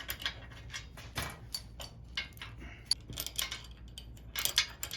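Irregular metal clicks, clinks and rattles as the steel projector cage and its mounting hardware are handled and fitted, with busier clusters about three seconds in and near the end.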